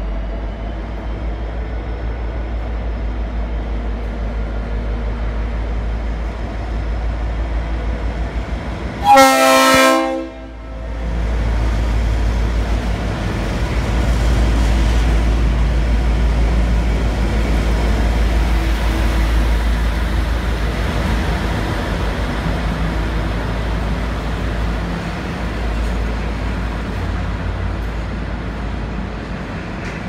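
Leslie RS5T horn on a V/Line N class diesel locomotive: the tail of a horn chord fades at the start, then one loud blast of about a second comes about nine seconds in. After it, the locomotive's diesel engine rumbles low as it pulls past, growing louder and then easing as the carriages roll by.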